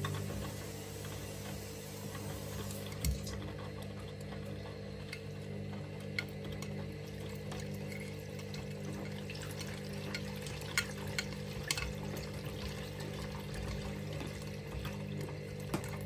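Candy front-loading washing machine on its wash cycle: a steady motor hum as the drum turns and the laundry tumbles and sloshes in the wash water, with a few light clicks and knocks.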